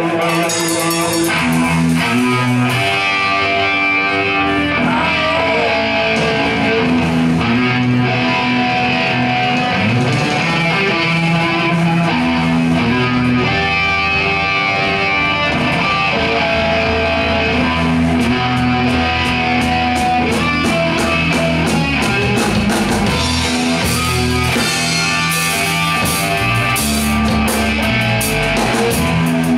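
Rock band playing live at a steady loud level: electric guitars over a drum kit with cymbals.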